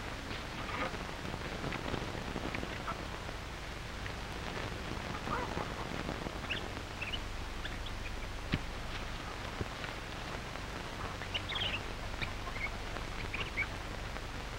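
Steady hiss and faint low hum of a worn early-1930s optical film soundtrack, with scattered faint short chirps and clicks.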